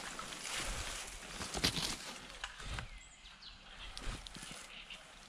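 Footsteps and rustling of leafy brush as someone pushes through forest undergrowth, busiest in the first half. A few short, falling bird chirps come in about three seconds in.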